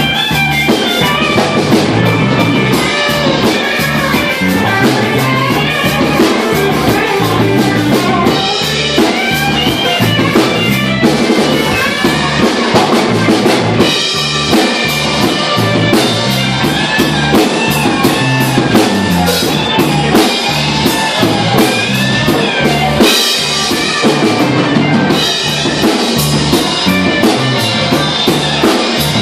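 Blues band playing: drum kit, guitar and bass.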